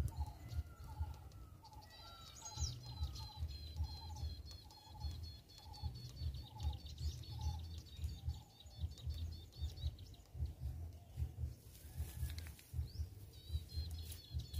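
Birds calling: one repeats a short mid-pitched note about twice a second through the first half, while another gives a fast, high, chattering trill that starts about two seconds in, stops around ten seconds, and returns near the end. Under them runs a low, uneven rumble.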